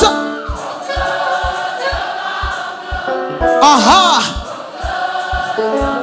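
Gospel worship music: choir singing over held keyboard chords and a steady kick drum at about two beats a second, with a voice sweeping up and down through a run just before the four-second mark.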